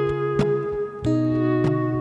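Instrumental music with no singing: a guitar strumming held chords, changing chord about a second in.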